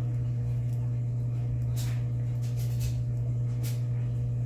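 Steady low electrical hum under a few faint, short rustles and clicks of hands handling plastic craft packaging.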